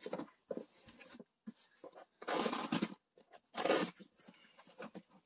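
Packing tape on a cardboard shipping box being slit with scissors and torn open: two louder rasping tears, one about two seconds in and a shorter one a second later, among light rustling and handling of the cardboard.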